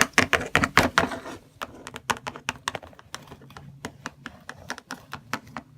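Small plastic toy figurines tapped along a hard surface as if walking: a quick run of sharp clicks for the first second and a half, then sparser, fainter taps.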